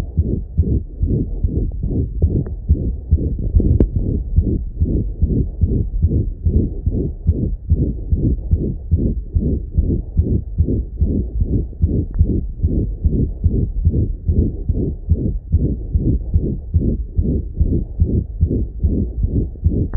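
French Bulldog's heart heard through a stethoscope, beating fast and regularly with a murmur over each beat: the murmur of congenital pulmonic stenosis.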